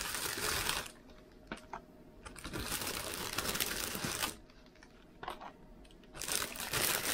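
Plastic wrapping of packs of Korean seaweed crinkling and rustling as they are handled and set down on a glass table, in three bursts of one to two seconds with a few sharp clicks between them.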